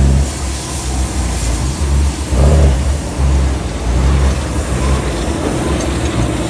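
A JCB Fastrac tractor's diesel engine runs loud as the tractor drives slowly up close, with a pulsing low note that swells and eases.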